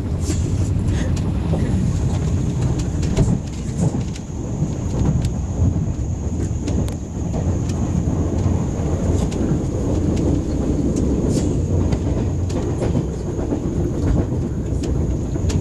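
Inside a TGV high-speed train on the move: a steady low rumble from the running gear and track, with scattered sharp clicks and knocks as the wheels cross points in a rail yard. A thin, steady high whine joins about two seconds in.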